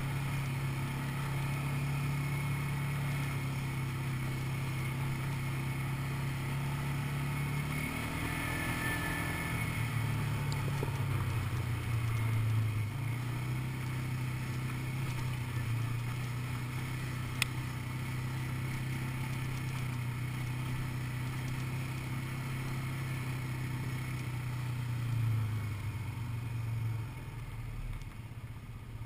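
Quad bike engine running steadily under way on a dirt track, its pitch dropping and rising with the throttle about a third of the way in and again near the end. A single sharp click about two-thirds of the way through.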